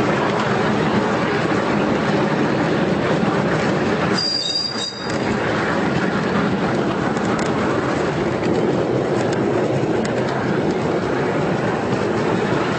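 Miniature ride-on railway train running along ground-level track, giving a steady rumble and rattle of wheels on rail. The noise dips briefly a little after four seconds in.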